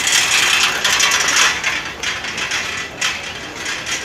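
Wheeled luggage rolling over the platform paving: a rapid rattling clatter of small hard wheels, loudest in the first second and a half, with another burst about three seconds in.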